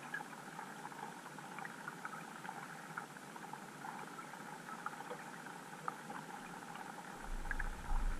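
Underwater ambience picked up by an underwater camera: a steady hiss with many small scattered clicks and crackles, and a low rumble coming in about seven seconds in.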